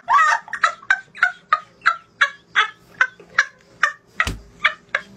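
Boys laughing hard in a rapid string of short, high-pitched bursts, about three a second. A single thump comes about four seconds in.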